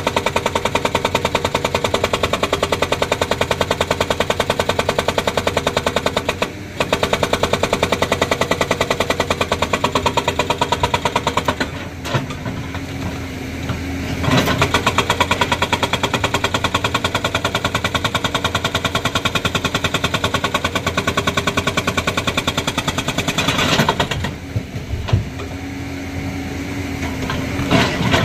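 Excavator-mounted hydraulic rock breaker hammering a large stone boulder in rapid, even blows. The blows come in long bursts with two short pauses, during which the excavator's engine is heard running.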